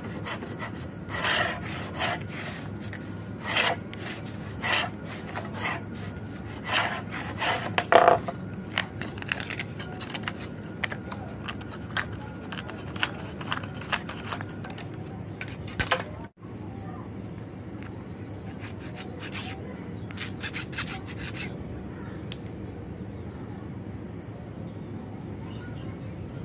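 Wooden marking gauge's steel point drawn along a thin strip of wood in repeated scraping strokes, scoring it to cut it through. The strokes come irregularly and are loudest in the first half, with a few fainter ones about twenty seconds in, over a steady low hum.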